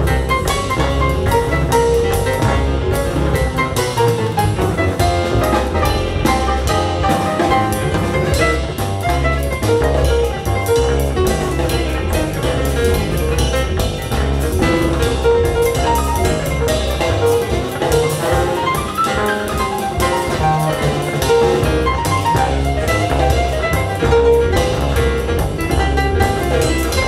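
Jazz with drum kit and bass, played back through Sonus Victor GrandeLuna Mark II loudspeakers driven by CH Precision amplifiers and heard in the listening room. The bass pulses steadily under the melody.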